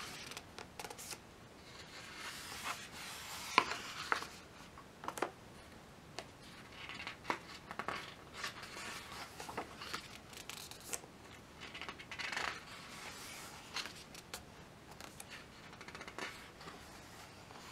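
Pages of a large, hefty photobook being turned by hand: faint paper rustling and sliding, with scattered soft clicks as the pages are handled, the sharpest about three and a half seconds in.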